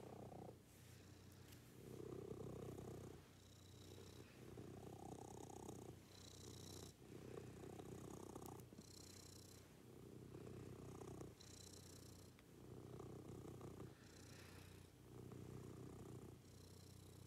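Domestic cat purring close by, the purr swelling and fading with each breath about every second and a half.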